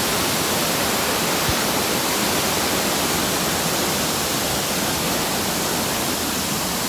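Steady, loud rushing roar of a waterfall at close range.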